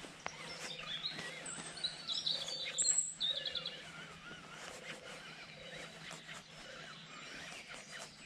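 Small songbirds singing and chirping, a busy mix of quick high chirps and short warbling phrases, loudest about two to three seconds in.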